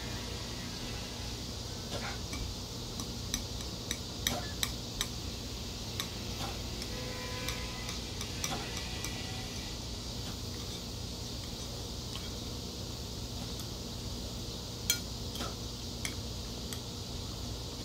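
Metal chopsticks clicking and scraping against a ceramic plate while picking at food, with scattered sharp clinks, several about two to five seconds in and a few more near the end, over steady room noise.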